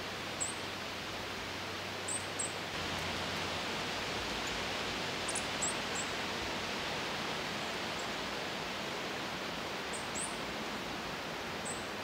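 Steady outdoor background hiss with short, very high, thin bird chirps scattered through it, about nine in all, some in quick pairs.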